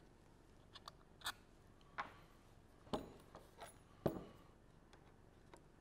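Screwdriver and steel parts being handled while the action screws are taken out of a Mosin-Nagant's trigger guard: a handful of small, irregular clicks and knocks of metal, the strongest about two, three and four seconds in.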